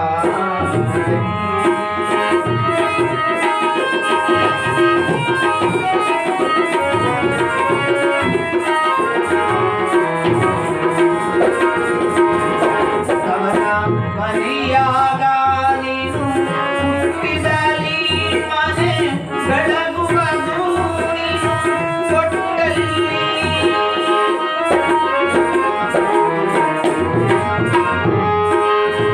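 Harmonium playing a melody over a held drone note, with tabla drumming the rhythm underneath.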